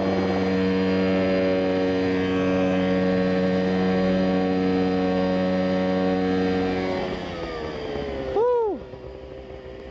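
Mosquito Air ultralight helicopter in flight, heard from on board: its engine and rotor running steadily at a constant pitch. About seven seconds in, the engine note drops in level and sags in pitch as power comes off. Near the end there is a brief loud sound that rises and then falls in pitch.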